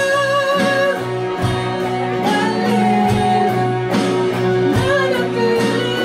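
Live band playing: electric guitars over drums and cymbals, a note held over the first second.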